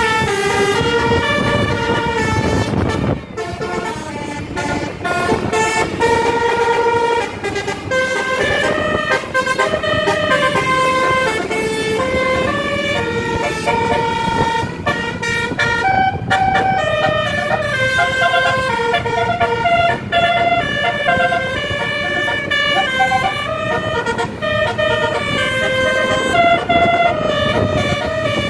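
Bus telolet horn, a multi-tone air horn, playing a long melody of stepped notes, with a short dip about three seconds in.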